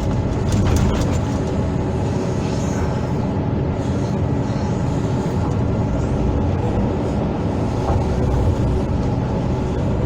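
Hydraulic excavator's diesel engine running steadily under work, with a few short knocks about a second in.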